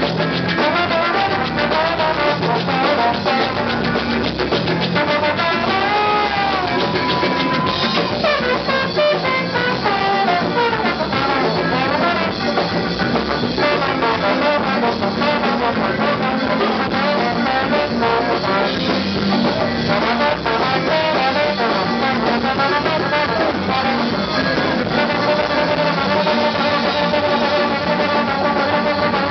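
Live band music: a brass lead, most likely trombone, plays bending, sliding lines and a held high note over the rhythm section.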